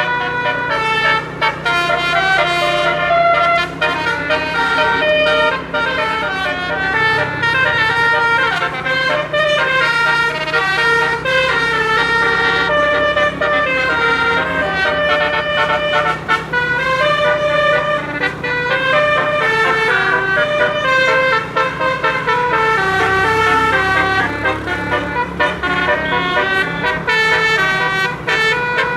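Indonesian bus 'telolet' multi-trumpet air horn, a 12-note basuri set, playing a long continuous melody. The notes step from one pitch to the next without a break, over a low steady hum.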